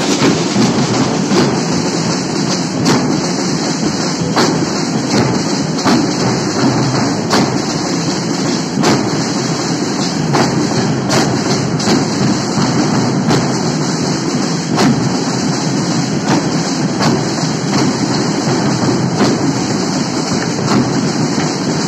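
A marching drum band's snare drums and bass drums played together in a dense, loud, driving rhythm, with heavy accented beats about every second and a half.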